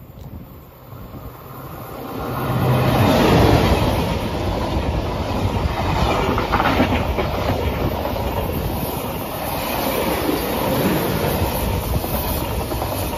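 A train running past on the track, building up over the first two seconds and then staying loud and steady.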